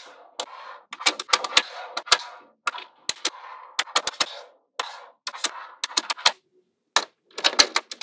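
Small magnetic balls snapping together with sharp clicks in quick irregular clusters, a softer rattle between the clicks as strips of balls are slid over the tabletop and pulled onto the sheet. The clicks stop briefly about six and a half seconds in, then pick up again.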